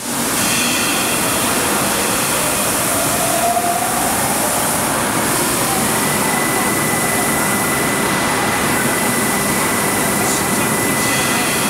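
Steady, loud machinery noise of a sheet-metal stamping press line running, an even din with no distinct strokes standing out. A thin steady high whine joins about halfway through.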